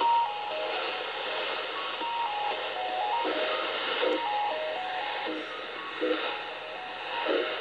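Shortwave AM broadcast of Radio Sultanate Oman on 15140 kHz, played through a communications receiver: music with a simple melody of short stepping notes and a few thuds, under steady static hiss.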